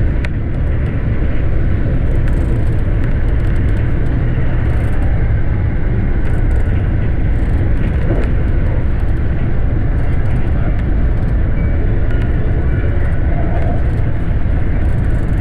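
Electric commuter train running at speed, heard from inside the front car: a loud, steady rumble of wheels on rail and running gear, heaviest in the low range.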